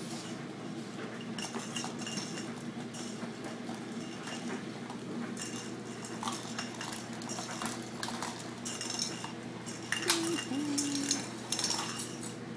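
Bullmastiff puppies playing with hard plastic toys on a tile floor: irregular clattering, knocking and clicking of plastic on tile, loudest about ten seconds in, with a short squeak of about a second there.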